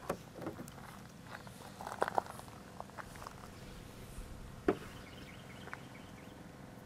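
Faint, scattered handling noises: small clicks and rustles as drone gear is handled and set up.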